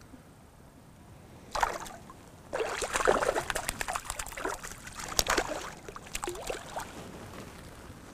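A hooked fish splashing and thrashing at the water's surface as it is played to the boat on a fly rod: one short splash about one and a half seconds in, then a run of irregular splashing for several seconds before it is lifted clear.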